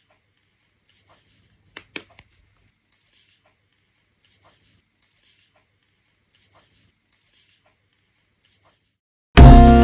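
Near silence with a faint low hum and two short clicks about two seconds in, then strummed acoustic guitar music starts suddenly near the end.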